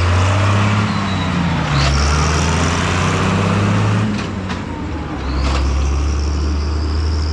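Diesel engine of a farm tractor pulling a loaded trailer as it drives past, its low note shifting about two seconds in and dipping briefly near the middle before picking up again, with a thin high whine in the later seconds.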